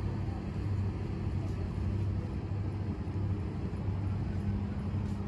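Steady low drone of a distant motor engine, swelling and easing slightly, over faint outdoor background noise.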